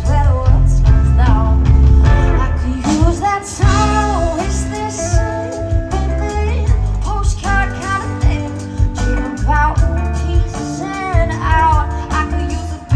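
Live band playing with a female lead singer, backed by electric bass, mandolin and drum kit, with a heavy low end.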